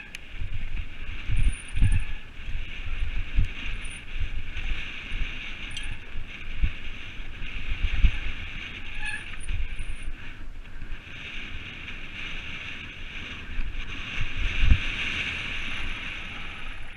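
Mountain bike descending a dirt trail and then a gravel road, heard from a helmet camera: a steady rushing noise of tyres and moving air, with frequent low knocks and jolts from bumps in the ground, the heaviest about two seconds in, near the middle and near the end.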